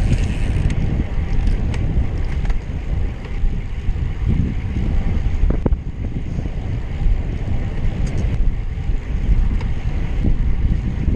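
Wind buffeting the camera microphone of a moving road bike: a steady low rumble that swells and dips, with a few faint ticks.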